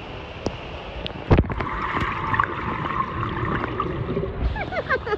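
Pool water heard through a camera that goes under the surface: a splash about a second in, then muffled underwater bubbling as a swimmer blows bubbles toward the lens.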